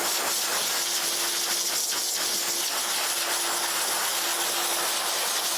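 High-velocity pet dryer blowing steadily, a loud even rush of air over a steady motor hum, cut off suddenly at the end.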